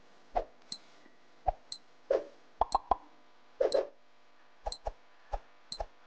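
Quiz countdown timer sound effect: a run of short pops and clicks, a few each second, some with a bright high ping.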